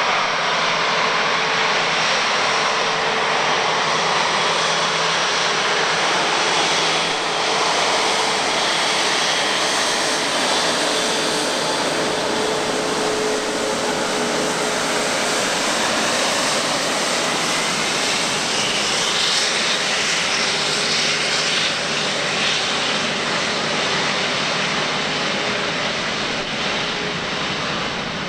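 Rolls-Royce Trent XWB engines of an Airbus A350-900 running at taxi thrust as the jet rolls past: a steady jet rush and whine with a low humming tone. A faint high tone bends in pitch about two-thirds of the way through.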